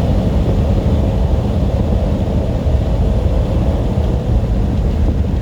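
Steady drone of a semi-truck at highway speed, heard from inside the cab: a low engine rumble with a constant hum and road noise, unchanging throughout.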